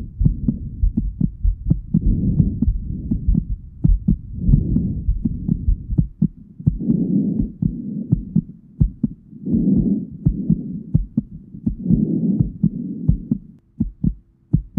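Human heartbeat heard through a stethoscope: quick, even thumps, with breathing that swells in and out about every two and a half seconds. Near the end the breathing stops and a steady low hum comes in under the heartbeat.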